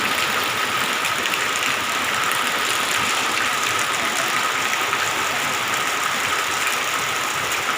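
Heavy rain falling steadily in a downpour, an even rushing hiss. A faint steady high tone runs under it.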